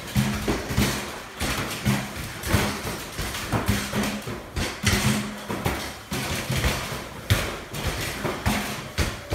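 Rapid-fire shots at a Pop-A-Shot basketball arcade game: mini basketballs thudding against the backboard and rim and bouncing, about two impacts a second.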